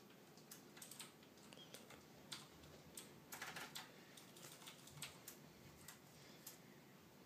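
Near silence with faint, scattered light clicks and taps, bunched more closely together about three and a half seconds in.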